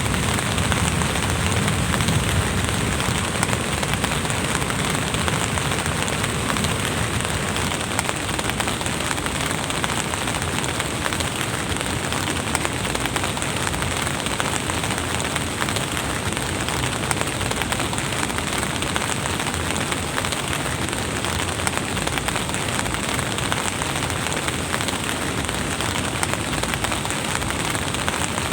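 Steady rain, an even hiss with no pauses. There is a low rumble in the first few seconds that fades.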